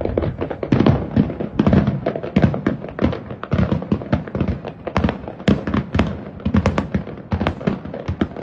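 Fireworks going off in quick succession: a dense string of sharp bangs and crackles, several a second, with no pause.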